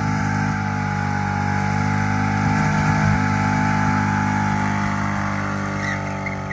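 Ford Mustang 5.0 V8 held at high, steady revs during a burnout, rear tyres spinning. The engine note fades toward the end as the car pulls away.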